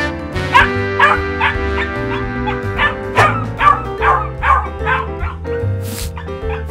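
Small puppy yipping in short, high barks, about two a second, over cheerful background music; the yips stop about five and a half seconds in.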